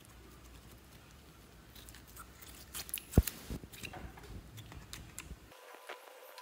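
Translucent brown slime being stretched and squished by hand, giving soft sticky crackles and small pops, with one sharper pop about three seconds in.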